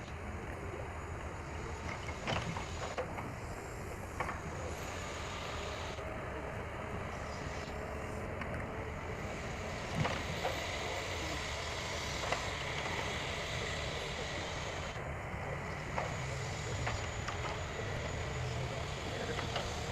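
A forestry machine's diesel engine running steadily, with a few light knocks scattered through it.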